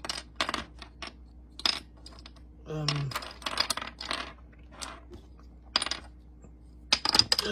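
Plastic Rubik's cube layers being twisted by hand: irregular bursts of quick clicking and clacking. There is a short low vocal hum about three seconds in.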